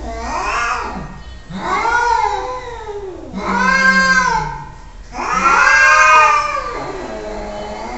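Domestic cat yowling: four long, drawn-out meows in a row, each rising and then falling in pitch.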